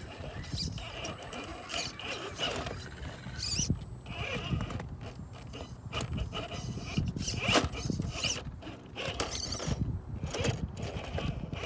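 Radio-controlled rock crawler's small electric motor and gears whirring in short bursts, with irregular clicks and scrapes.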